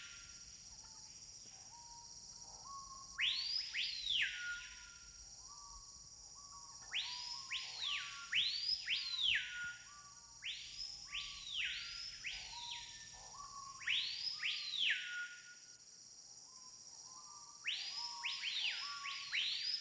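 Tropical rainforest birds calling: loud whistles that drop sharply in pitch, in groups of two or three every few seconds. A steady high insect drone runs underneath.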